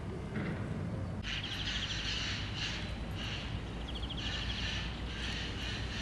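Songbirds singing in repeated short, fast-trilled high phrases, starting about a second in, over a steady low rumble.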